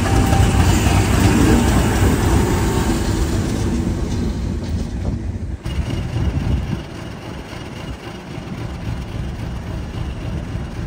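Class 50 diesel locomotive passing close by, its English Electric 16-cylinder diesel engine running with a loud low rumble. About five and a half seconds in the sound drops sharply, and a quieter engine rumble carries on.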